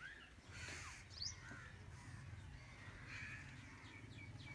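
Faint bird calls: scattered short chirps with a quick high note about a second in, over a faint low steady hum.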